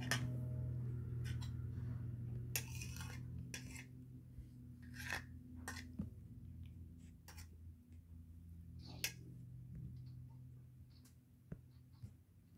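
Scattered light clicks and short scraping, clattering rustles over a low steady hum that fades and returns.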